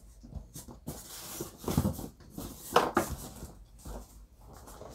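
Boxed Barbie dolls being handled and shifted in a pile: cardboard-and-plastic packaging rubbing and knocking, in irregular scrapes and taps.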